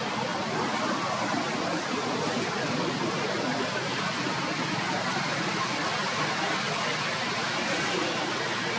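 Steady, even hiss of background noise with no distinct calls or knocks standing out.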